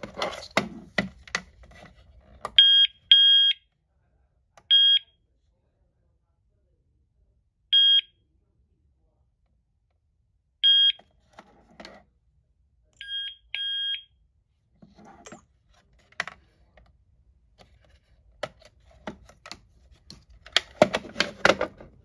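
Short, steady electronic beeps from a burglar-alarm panel and its wireless flash siren during siren pairing: several single beeps, then a short and a longer beep about 13 seconds in, the siren's double beep that signals it has paired. Plastic clicks and rattles from the siren housing being handled come at the start and through the last several seconds, loudest near the end.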